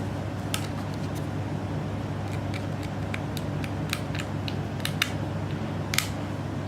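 Small screwdriver tightening the side screws that hold a 2.5-inch hard disk in a laptop HDD caddy: a dozen or so light, irregular clicks and ticks, the loudest about five and six seconds in, over a steady low hum.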